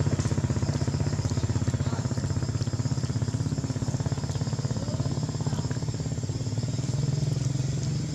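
A small engine idling steadily, a low, even, fast throb that holds unchanged.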